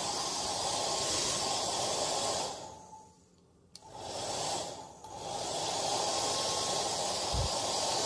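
Hair dryer blowing with a steady hiss and a faint whine. About two and a half seconds in it dies away to near silence for about a second, with a click, then comes back up, dips briefly once more and runs steady again.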